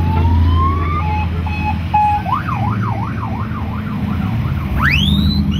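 Electronic siren cycling through its tones: a slow rising wail, then a two-note hi-lo, then fast up-and-down yelps that quicken, ending with a sharp upward sweep. Under it, the low engine rumble of cars passing on the street.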